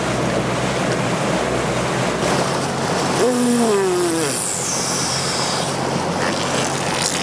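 Bass boat running fast across open water: a steady rush of wind and water spray, with the outboard motor running underneath. About three seconds in, a short tone falls in pitch over the rush.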